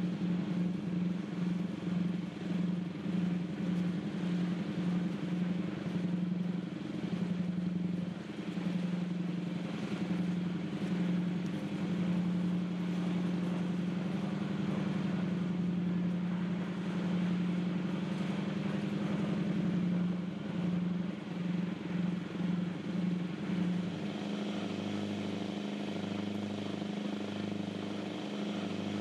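Tour boat's engine running steadily under way on the fjord. Near the end the engine note changes and a slow throb of about one beat a second sets in.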